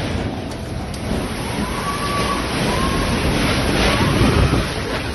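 Tornado wind blowing hard, a loud steady rumbling roar with wind buffeting the phone's microphone. A few faint short whistles sound over it.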